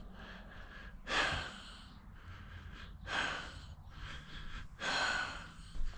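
A person breathing out heavily three times, about two seconds apart.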